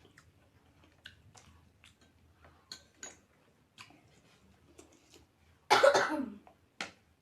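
A woman coughing once, loudly, about six seconds in, the cough falling in pitch as it ends. Faint small mouth clicks from eating come before it.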